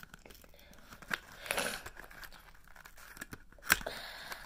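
Stiff plastic pen packaging being torn and crinkled open by hand: irregular rustling and crackling, with a sharp snap near the end.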